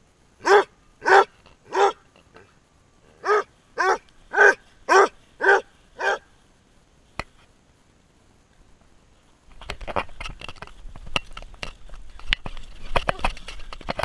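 Basset hound barking: three barks, a short pause, then six more at about two a second. After a quiet spell, a steady rustle with frequent knocks sets in from the camera being moved and jostled.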